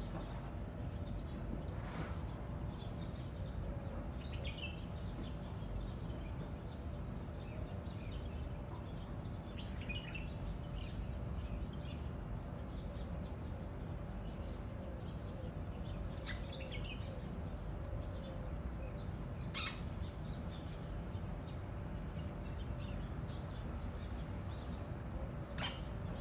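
Steady low outdoor background rumble with a few faint chirps. In the second half come three short, sharp, high-pitched bird calls, each sweeping quickly down in pitch, spaced a few seconds apart.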